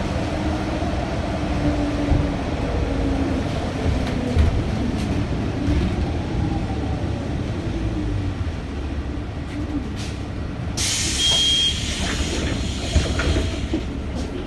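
City bus running with a steady low rumble. About eleven seconds in, a sudden hiss of compressed air from the bus's air system starts and runs on for a few seconds, with a short high beep near its start.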